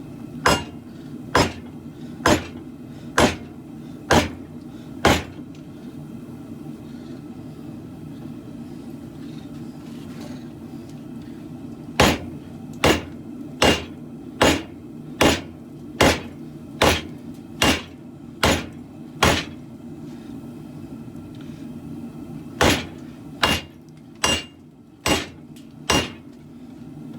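Hammer blows on hot steel at the anvil, forging a khopesh blade: three runs of strikes about a second apart, six, then nine, then five, some with a brief metallic ring. A steady low hum runs underneath.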